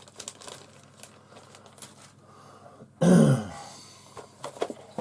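A man clears his throat once about three seconds in: a short, loud, harsh sound falling in pitch. Faint light clicks and rustling come before and after it.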